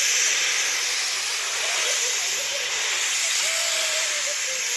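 C62-class steam locomotive hissing steadily as steam jets from its open cylinder drain cocks while it backs slowly away.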